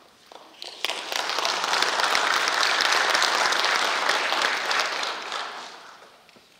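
Audience applauding: a short round of clapping that starts about a second in, builds up and fades out near the end.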